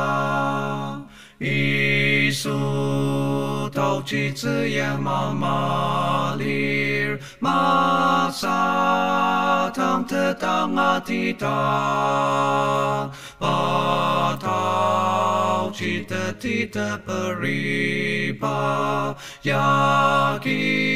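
An Ao-language hymn sung a cappella in four-part harmony, all four parts sung by one singer and layered together. It moves in long held phrases with short breaks about every six seconds.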